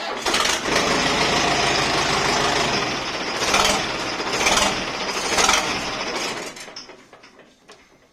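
Mahindra Arjun tractor's diesel engine started with the self-starter on a newly fitted ignition switch, which works. It runs with three short louder surges around the middle, then dies away near the end.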